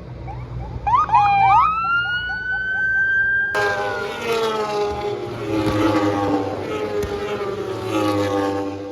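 Racing motorcycle engines at high revs. One climbs in pitch in quick steps as it shifts up through the gears, and from about three and a half seconds in there is a louder, fuller engine sound whose pitch falls several times as bikes go past.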